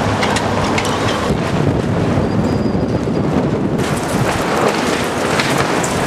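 Strong gusty wind buffeting the microphone: a loud, steady rumble with scattered crackles. The higher hiss drops away for a couple of seconds in the middle.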